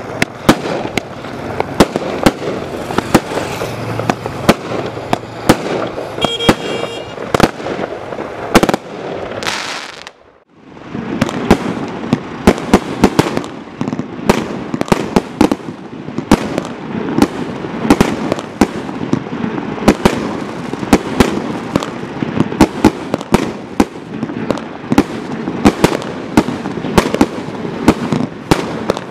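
Consumer firework barrage cakes (Primed Pyrotechnics Casino, then Roll the Dice) firing in quick succession: rapid launch shots and star bursts with crackle throughout. About ten seconds in the firing stops briefly as one cake ends, then the next cake starts.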